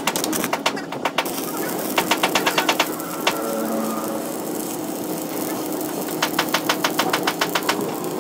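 Stick arc welding on a broken steel gear's teeth: the arc strikes about a second in and then sizzles steadily as weld is built up on the damaged teeth. Stretches of rapid knocking, about ten a second, come in about two seconds in and again around six seconds.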